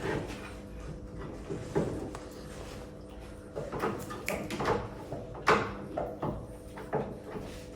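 Clamps being fitted and tightened on a freshly glued wooden table joint: irregular knocks, clicks and scrapes, the sharpest about two thirds of the way through.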